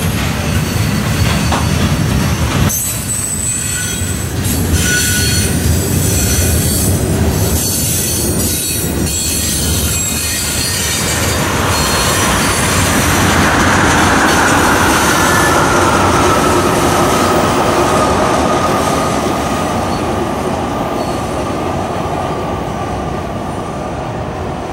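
Freight train of steel-coil cars rolling past, the wheels clattering over the rails. About halfway through, a long high wheel squeal sets in from the cars rounding the curve. It slowly falls in pitch and fades as the train moves off.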